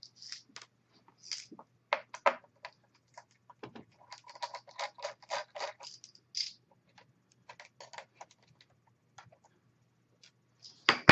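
Small irregular clicks and light scrapes of a Phillips screwdriver working the tiny screws that hold a laptop's LCD panel, with a sharper knock at the very end.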